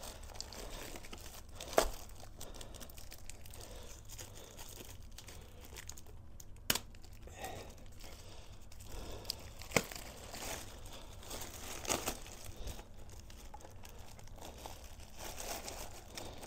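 Clear plastic wrapping crinkling and tearing as it is pulled and worked off a grinder by hand, with a few sharp clicks along the way.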